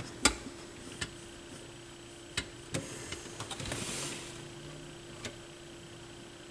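Scattered small clicks and taps of hands handling the turntable's drive mechanism parts (belt, idler and solenoid linkage), about half a dozen, with a short rustle about three and a half seconds in, over a faint steady hum.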